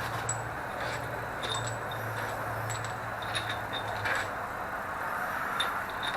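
Scattered light metallic clicks and clinks of hand tools and engine parts being handled, over a steady background hiss, with a low hum that stops about four seconds in.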